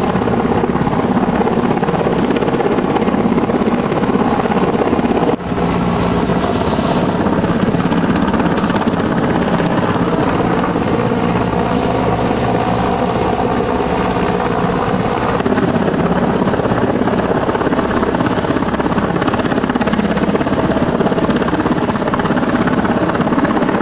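Air Force military helicopter hovering low over the river, its rotor and turbine running steadily, with a brief dip about five seconds in.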